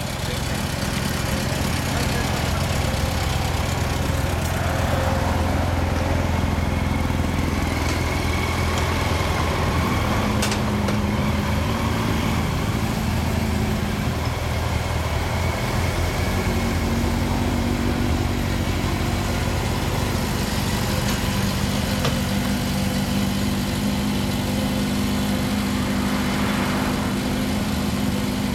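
Several motorcycle engines idling together: a steady, deep running sound whose pitch shifts slightly now and then as the bikes start to roll off.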